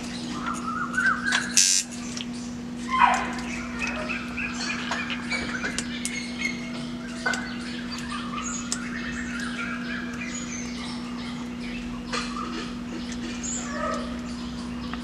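Tattoo machine running with a steady buzz, with chirping and squawking bird calls over it.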